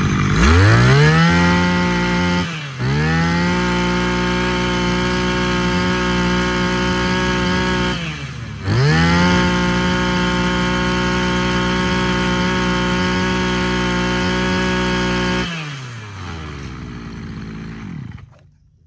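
Maruyama KC26M 26cc two-stroke brush cutter engine revved to full throttle three times, each rev held for a few seconds with short dips toward idle between. It drops back to idle and is shut off near the end.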